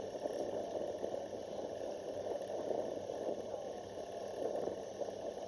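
Steady rushing wash of sea water, surf on a beach, with no distinct events.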